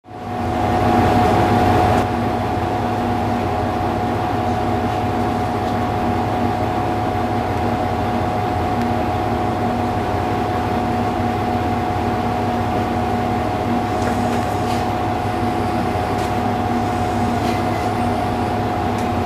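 Diesel railcar engine idling, heard from inside the car: a steady low rumble with a constant whine over it.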